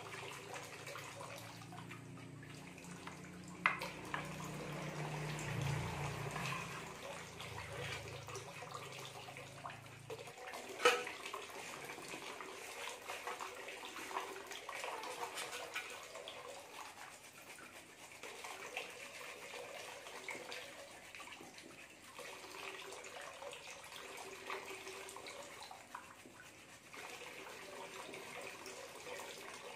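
Tap water pouring steadily into a large metal basin already holding water, with two sharp knocks, one a few seconds in and a louder one about eleven seconds in.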